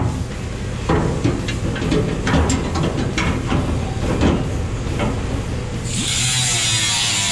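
Metal parts clunking and rattling as a steering column and pedal assembly are handled under a truck's dash. About six seconds in, a small cut-off tool begins grinding the sheet-metal firewall with a steady, high-pitched hiss.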